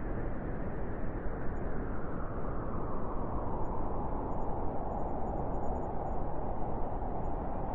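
Cold wind blowing steadily, an even rushing noise with no gusts or breaks, growing a little brighter and more hissing from about three seconds in.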